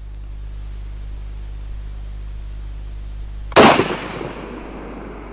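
A single rifle shot from a Howa HLR in 6.5 Creedmoor, about three and a half seconds in. The report trails off over about a second.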